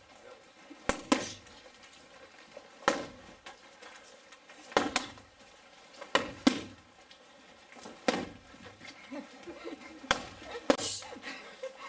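Taekwon-Do kicks landing on padded, hand-held kick shields: a string of sharp smacks, one every second or two.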